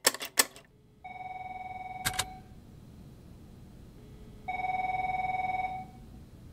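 A few sharp clicks at the very start, then a corded desk telephone rings twice. Each ring is a steady electronic tone lasting about a second and a half, the two about three seconds apart.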